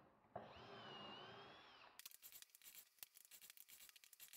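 Near silence: faint room tone, with scattered faint ticks in the second half.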